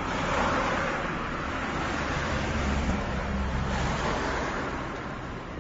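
A car driving past on a town street: tyre and engine noise swells, holds for a few seconds with a low engine rumble in the middle, then fades away near the end.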